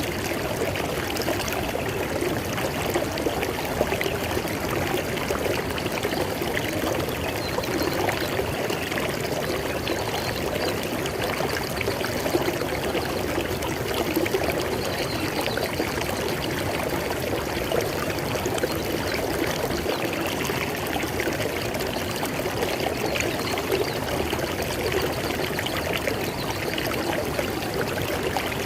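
River water flowing steadily, a continuous rushing and splashing with no pause or change.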